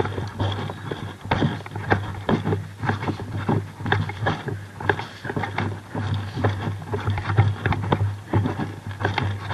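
Footsteps of a person on the move, uneven, about two or three a second, over a steady low hum.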